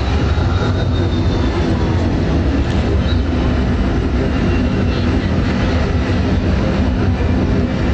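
Loud, steady, low rumbling noise that runs on without a break.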